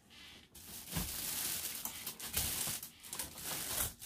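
Clothes being handled and moved: fabric rustling with scattered clicks and knocks, starting about half a second in.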